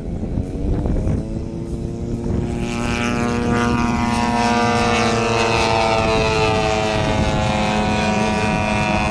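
Propeller engines of two quarter-scale radio-controlled aerobatic planes, a Sukhoi and a Skybolt, running in flight; their drone swells about two and a half seconds in and stays loud, the two engine pitches slowly drifting and crossing as the planes pass.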